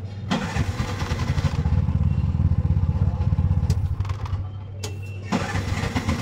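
Bajaj auto-rickshaw's single-cylinder engine idling with steady low pulsing, the idle now stable after its cut wiring was repaired. About four and a half seconds in the engine sound drops for under a second, then picks up again.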